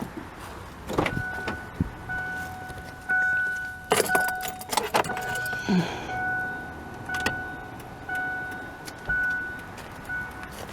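Car's electronic warning chime beeping in a steady, repeating pattern with the ignition on, over clicks and knocks from hands working around the open engine bay.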